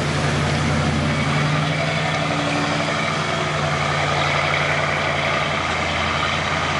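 Heavy emergency vehicle's engine idling with a steady low hum.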